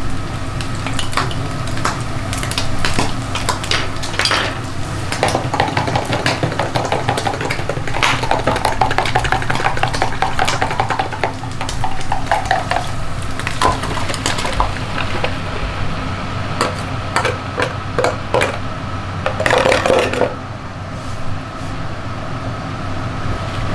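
Kitchen cookware sounds: a spoon clinking as it stirs broth in a plastic measuring jug, then the broth poured into a pan of browned minced meat and a wooden spatula stirring through it. Many sharp clinks and knocks over a steady low hum, with one loud clatter near the end.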